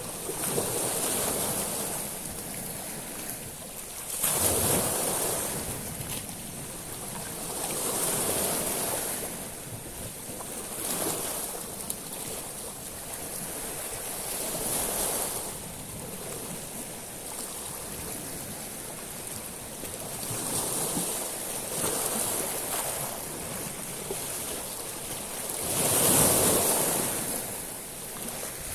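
Sea waves washing onto a beach of small stones, with a loud surge and hiss over the pebbles every few seconds; the biggest wave comes near the end.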